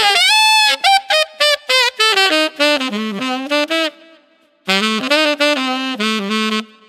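Solo tenor saxophone playing a phrase: a held note that bends upward, then a run of short detached notes and a falling line. After a brief pause about four seconds in comes a second phrase of repeated low notes.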